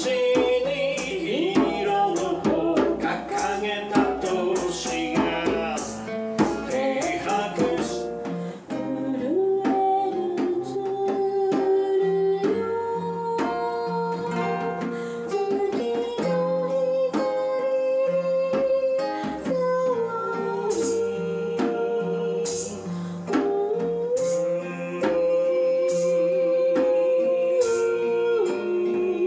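A man singing with long held notes, accompanying himself on a classical-style acoustic guitar, with light hand percussion behind.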